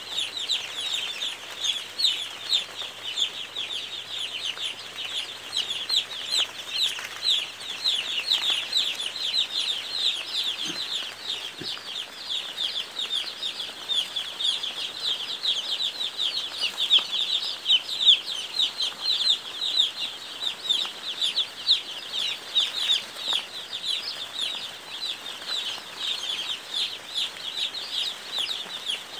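A large flock of young chicks peeping: a dense, continuous chorus of short, high, slightly falling chirps, many overlapping every second.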